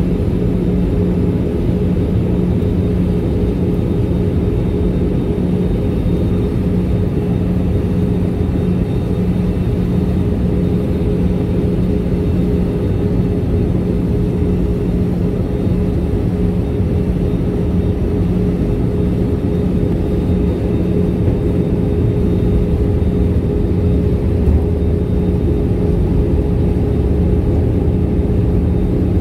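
Steady in-flight cabin noise of an Airbus A320: a dense engine and airflow roar with a low, even hum running through it, heard from inside the passenger cabin.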